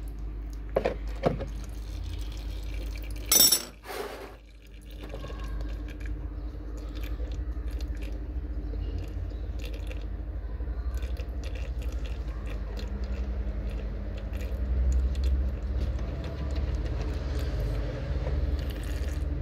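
Metal clicks and a sharp clank of a wrench working the gear-oil drain bolt on a Yamaha Fascino scooter's transmission, over a steady low hum. Later the bolt is turned out by hand and the old gear oil begins to trickle into a plastic drain container.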